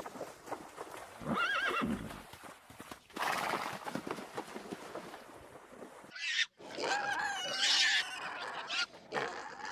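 Horse neighing: several separate whinnies with a wavering, shaking pitch, one early and a longer one a little past the middle.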